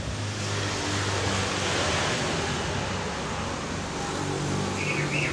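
Outdoor road ambience: a steady low engine hum with a broad rushing noise that swells about two seconds in and eases off, like a vehicle passing. A few short high chirps come near the end.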